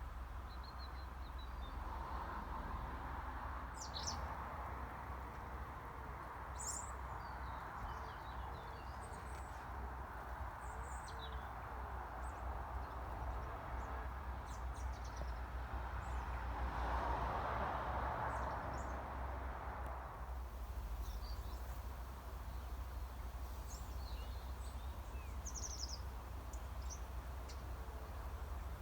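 Small birds chirping now and then over a steady outdoor background noise, which swells louder for a few seconds a little past the middle.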